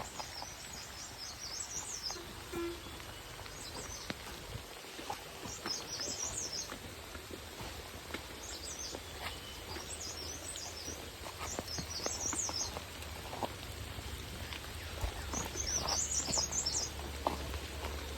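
A small bird singing short, high twittering phrases, repeated every second or two, over outdoor background noise with scattered small clicks and a low rumble near the end.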